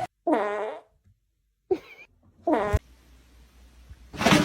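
A cat meowing twice, two short calls about two seconds apart.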